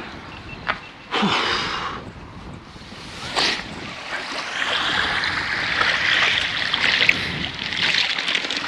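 Shallow seawater sloshing and lapping, with wind on the microphone. A loud rush about a second in and a sharp knock a couple of seconds later come from the camera being handled.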